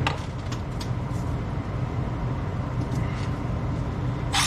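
A few light clicks and small knocks from hand work on furnace parts, ending in one sharp click near the end, over a steady low hum.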